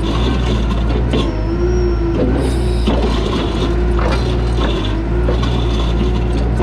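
Toyota SDK8 diesel skid steer running steadily while its hydraulics work the backhoe attachment through a dig, with a hum whose pitch sags and recovers under load and a thin high whine that comes in about a second in and drops out again, plus scattered clanks of the bucket and linkage.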